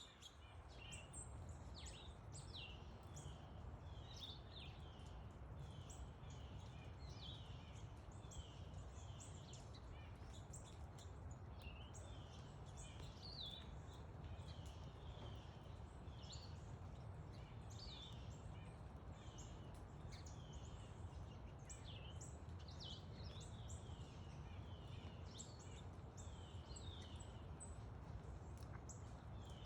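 Sparrows and finches chirping, many short high chirps overlapping without pause, over a faint steady low rumble.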